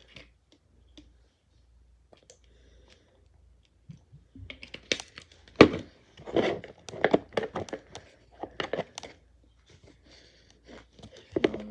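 An old pencil stirring a sticky glue and shaving-cream slime mixture in a bowl: quiet at first, then from about four seconds in a dense run of squelching, crackling and clicking as the pencil works through the mix and knocks against the bowl.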